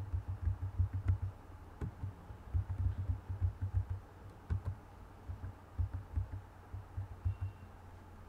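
Computer keyboard being typed on, picked up as dull low thuds rather than crisp clicks: three quick runs of keystrokes, each lasting about a second and a half, with a few faint sharper clicks among them.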